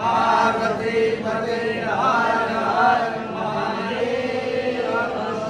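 Voices chanting a Hindu prayer mantra, the pitch rising and falling in a recited melody.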